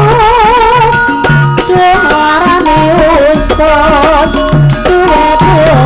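Javanese folk dance music for the emblek (kuda kepang) dance: hand drums beat a quick, steady rhythm under a wavering melody with strong vibrato.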